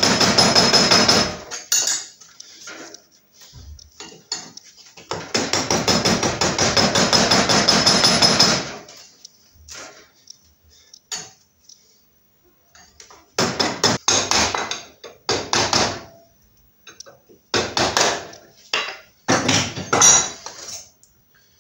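Quick, rapid hammer blows of steel on steel against a propeller shaft held in a vise, in several bursts, the longest lasting a few seconds. They come as the shaft's bearing is being knocked off to be replaced.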